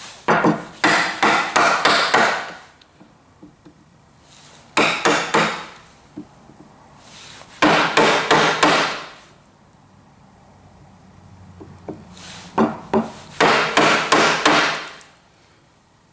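Wooden mallet striking a mortising chisel as it chops waste wood down to the knife line of a dovetail socket. Four runs of quick blows, separated by short pauses.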